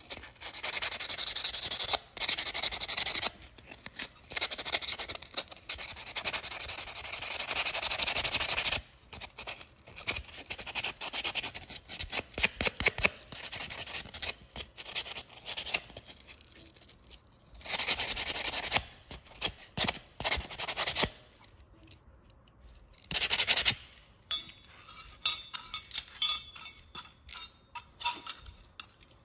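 Sandpaper rubbed by hand over small die-cast metal toy truck parts to smooth the surfaces. It goes in quick strokes, in runs of a few seconds with pauses between.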